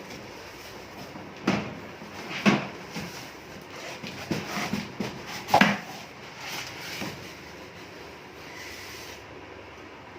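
A computer case being handled and opened: a string of sharp knocks and clatter, about half a dozen, strongest in the middle, then quieter handling.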